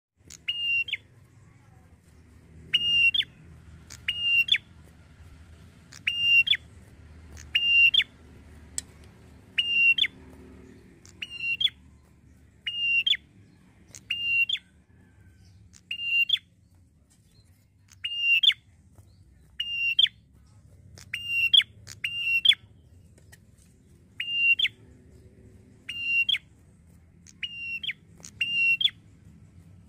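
A red-headed tailorbird (prenjak kepala merah) calling over and over: short, sharp, loud notes at roughly one-to-one-and-a-half-second intervals, each ending in a quick upward flick.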